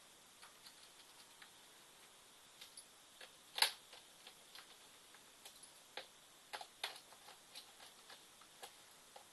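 Small Phillips screwdriver driving screws into a Toshiba Satellite L510 laptop's plastic case: faint, scattered clicks and ticks, with one louder click about three and a half seconds in.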